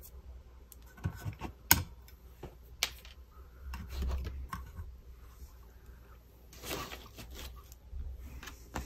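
A thick handmade paper journal being handled: scattered light taps, clicks and paper rustles, the sharpest click a little under two seconds in.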